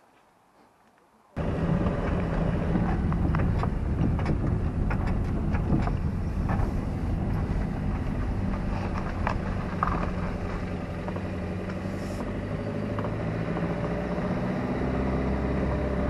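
Car engine running steadily with road noise, heard from inside the car, with small clicks and rattles scattered through it. It starts abruptly about a second and a half in, after near silence.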